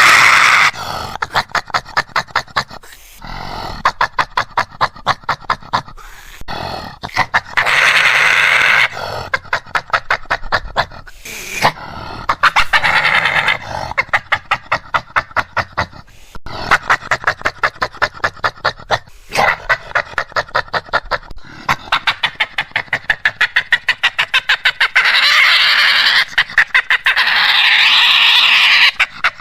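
Badger calls: runs of rapid pulsed chattering, several pulses a second, broken by a few longer shrill squealing calls, the longest near the end.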